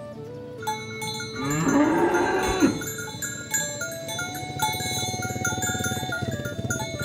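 A cow mooing once, one long call of about a second and a half that rises and then falls off, over light background music.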